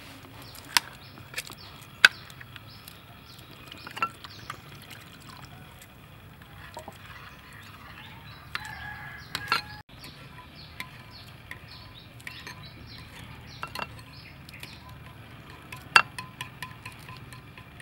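A metal spoon stirring a runny sauce in a bowl, with scattered sharp clinks and taps of utensils against the dishes, the loudest about two seconds in and again near the end.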